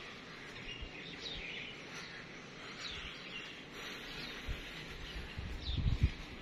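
Birds chirping in short, scattered calls over steady outdoor background noise, with a few low thumps near the end.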